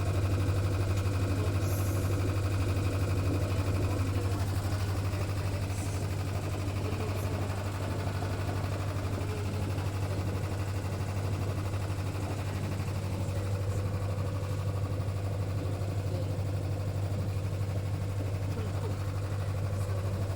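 A boat's engine running steadily, with an even low hum that holds without change.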